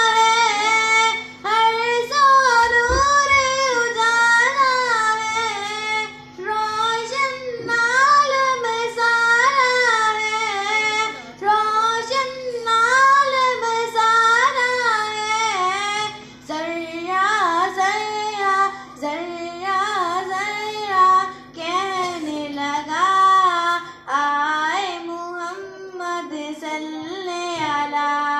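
A girl singing a naat, a devotional poem in praise of the Prophet Muhammad, solo through a microphone with no instruments, in long melodic phrases with short breaths between them. A faint steady hum runs underneath.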